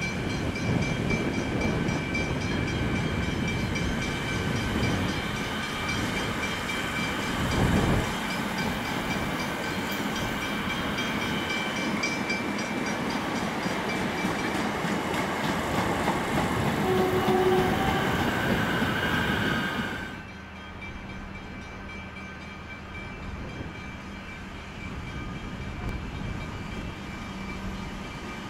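A Siemens six-car electric suburban train passes close, its wheels rumbling over the track, with a knock about eight seconds in and a few short squeals later on. About two-thirds of the way in the sound drops suddenly to a quieter steady low hum as a Comeng electric train approaches from a distance.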